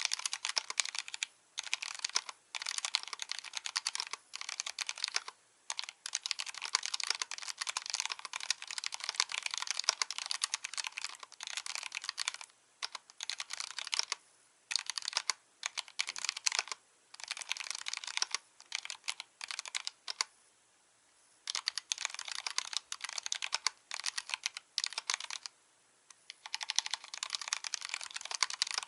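Typing on a full-aluminium mechanical keyboard with stock, unlubed Kailh Box Black linear switches on a stainless steel plate, under Cherry-profile Mstone Prima2 keycaps. Fast runs of keystrokes come with brief pauses between them, the longest about twenty seconds in.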